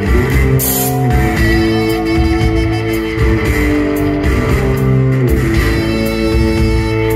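Live rock band playing electric guitars, bass and drums, with held chords that change about every second and cymbal crashes here and there.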